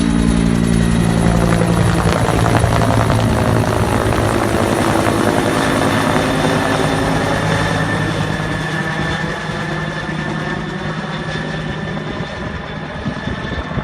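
Helicopter running with its rotor beat and turbine whine, loud at first, the low rotor sound fading over the last several seconds as it gets fainter.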